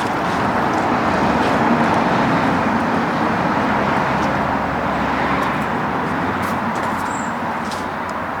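Steady road traffic noise from a busy road, swelling about two seconds in as a vehicle passes, then slowly easing off.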